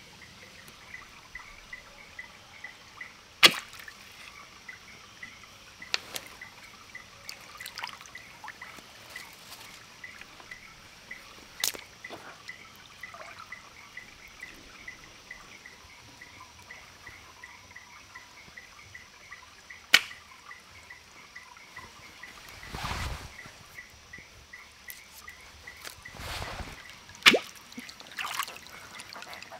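Water dripping and pouring, with two short pours or splashes near the end and four loud sharp knocks spaced several seconds apart. A steady high pulsing chirp, about three or four pulses a second, runs behind.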